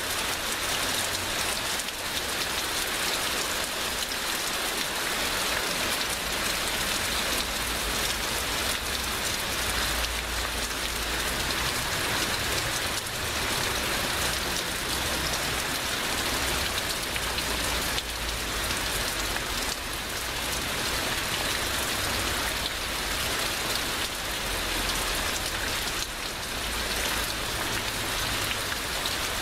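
Heavy rain pouring steadily, a dense even hiss of drops on surfaces.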